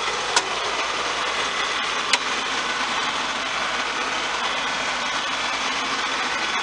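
Farm tractor engine idling steadily, with two short metallic clicks about half a second and two seconds in.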